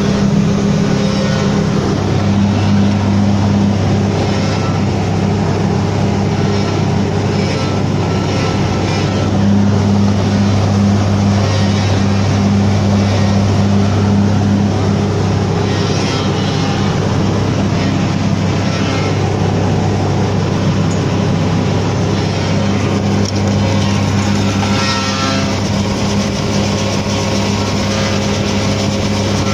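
John Deere 5400 self-propelled forage harvester running steadily under load while harvesting, heard from the driver's cab: a constant heavy engine drone with the rattle and whir of the pickup and chain drives.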